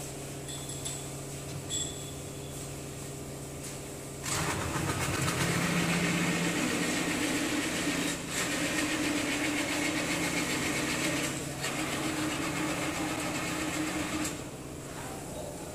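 Workshop machinery hum that gets much louder about four seconds in as a motor runs under load, with two brief dips, then drops back to the lower hum near the end.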